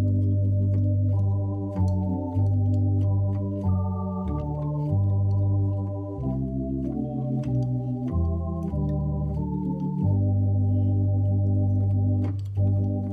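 Organ playing slow, sustained chords over a deep bass line, the chords changing every second or so.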